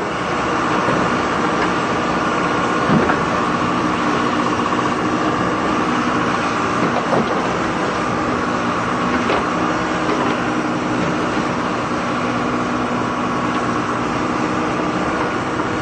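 A heavy truck's diesel engine running steadily, with a constant low drone and a higher whine above it.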